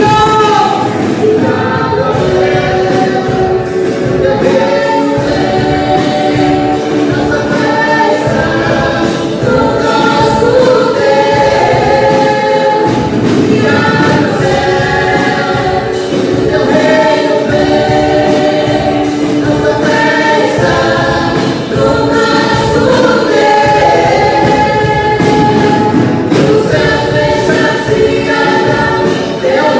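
Choir singing a gospel worship song with instrumental accompaniment.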